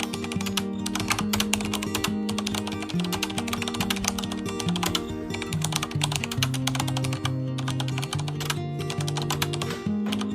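Background music with held low notes that shift pitch every second or so, over a dense patter of rapid, irregular clicks.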